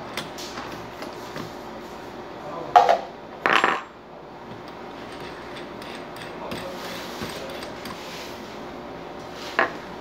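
Metal clinks of small steel tools being handled at a bench drill's chuck while a bit is fitted: a sharp clink about three seconds in, a short clatter just after, and another single clink near the end.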